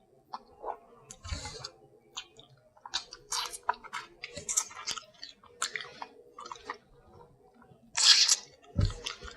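A person chewing food close to the microphone: irregular wet chewing and mouth smacking, with a louder burst about eight seconds in.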